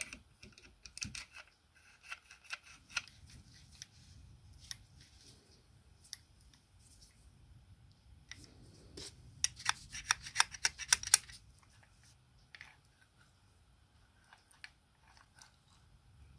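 Sharp clicks and snips from small hand work, scattered at first, then a quick, dense run of louder clicks about ten seconds in.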